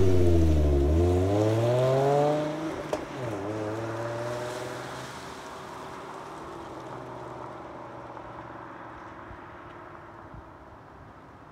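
Car engine accelerating hard. Its pitch climbs for the first couple of seconds, drops at a shift about three seconds in, then climbs again, and the sound fades steadily over the rest of the clip.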